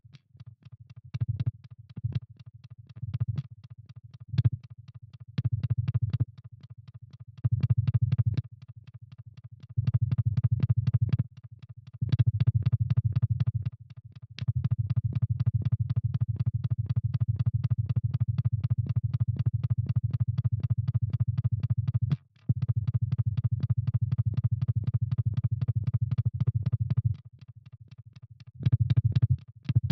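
Electronic noise-art sound: a low synthesized buzz laced with rapid, evenly spaced clicks, switched on and off in blocks. The short bursts give way to long held stretches, one of them cut off briefly about two thirds of the way through.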